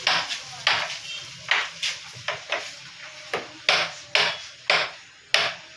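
Carrom striker flicked hard across a carrom board again and again, giving about a dozen sharp, irregularly spaced clacks as it is struck and knocks against the board's wooden frame.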